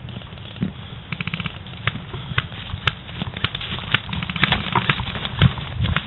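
Airsoft guns firing in a skirmish: a short rapid burst of shots about a second in, then scattered single sharp cracks.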